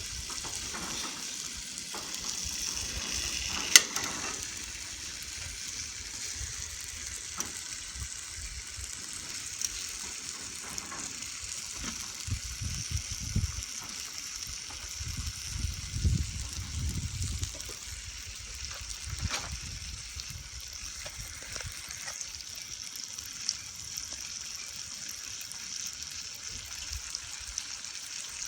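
Bacon sizzling in a pan over a campfire: a steady frying hiss with scattered pops and crackles, one sharp crack about four seconds in.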